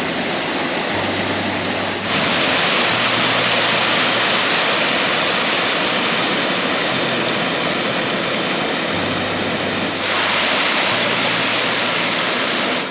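Small mountain-creek waterfall rushing steadily. The rush gets louder about two seconds in and drops back about ten seconds in.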